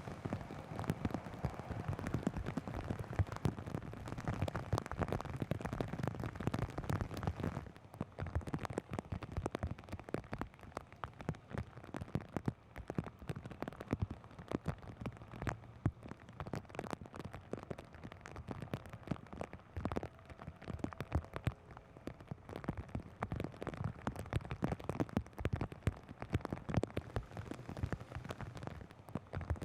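Rain falling from the hurricane-turned-tropical storm, a dense irregular spatter of drops striking a surface. About eight seconds in the sound turns duller, with less hiss.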